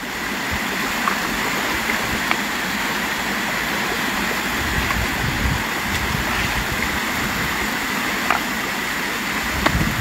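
Steady rushing of water spilling from a small concrete outlet into a shallow stream, with a few faint knocks now and then.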